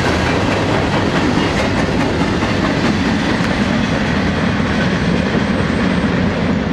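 Cars of a mixed manifest freight train rolling steadily past, a loud continuous rumble with wheel clatter on the rails.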